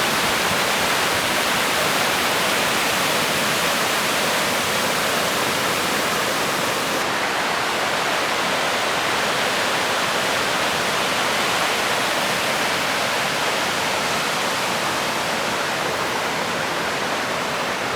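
Steady rush of flowing water, an even hiss with no breaks, slightly softer in the highest part from about seven seconds in.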